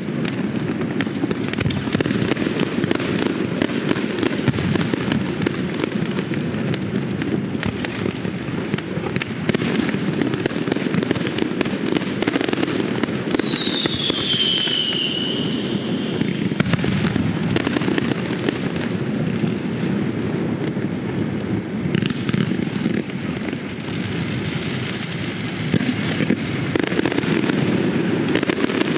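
Fireworks display: a dense, continuous barrage of bangs and crackling. About halfway through, a whistling firework sounds, its pitch falling.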